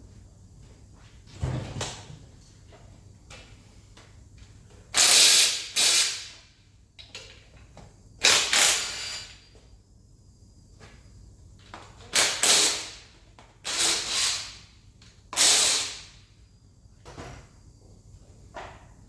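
Ratchet wrench worked in short bursts, about nine in all, each fading off quickly, on the Escort RS Turbo engine as it is stripped.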